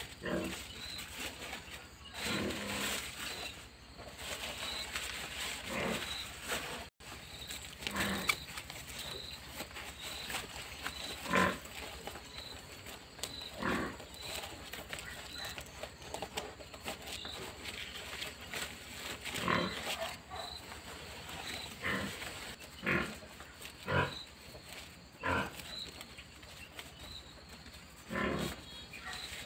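An animal calling in short, repeated calls at irregular intervals a few seconds apart. A faint high chirp repeats about once a second behind it.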